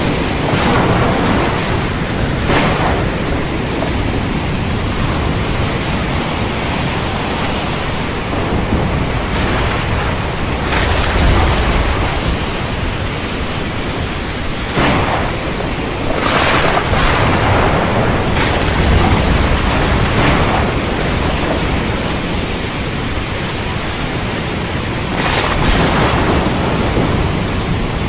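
Steady heavy rain hiss with rolling thunder: several swells of a second or two and deep rumbles, the strongest low rumbles about eleven and nineteen seconds in.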